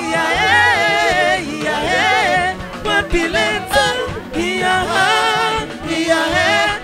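Music with singing: a sung melody with wavering, drawn-out notes over a steady accompaniment.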